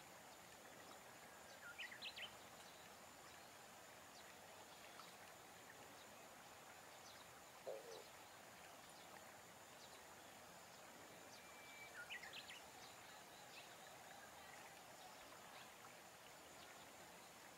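Near-silent open-air ambience with two brief bursts of short high bird chirps, about two seconds in and again about twelve seconds in, over a faint steady high tone.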